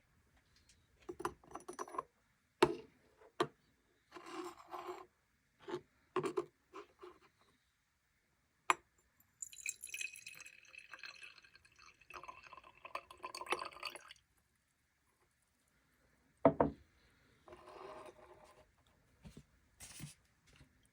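Liquid being poured and glass containers handled, with sharp knocks of glass set down on a hard surface between short stretches of pouring and a longer pour about halfway through.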